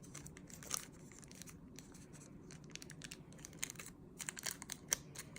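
Faint handling noise: soft rustling and scattered small clicks as small plastic parts are handled and fitted together.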